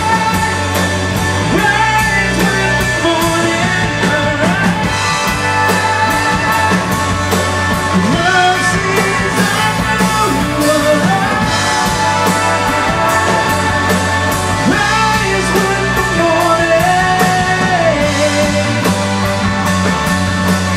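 Live rock band playing a Christian contemporary rock song, with drum kit, electric guitar and bass under a sung melody.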